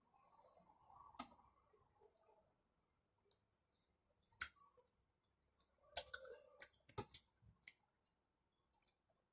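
Near silence broken by scattered faint clicks and taps: a sharp one about four seconds in and a cluster of several between six and seven and a half seconds.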